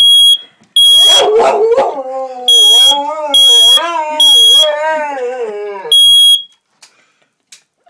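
Smoke alarm beeping in groups of three high, steady beeps, with a dog howling along in a long, wavering pitch. Both stop about six and a half seconds in.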